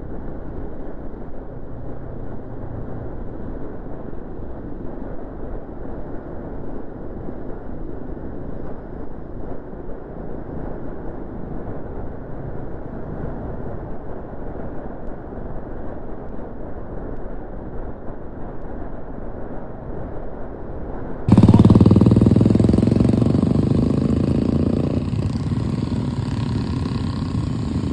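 Royal Enfield motorcycle running on the move, with an even rush of road and wind noise. About 21 seconds in the sound jumps abruptly louder and fuller, with a steady low engine note, then eases off slowly.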